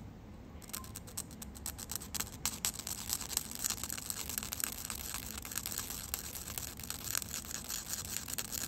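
A tiny watch sleeve held on a wooden stick being rubbed on sandpaper: fast, fine, continuous scratching that starts about half a second in. It is being ground down because it stands a little too tall against its post.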